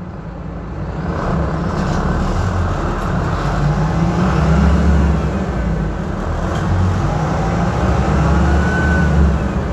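City bus engine running as the bus pulls away and drives on, heard from the driver's seat, with most of the sound low-pitched. It grows louder over the first two seconds, then holds steady.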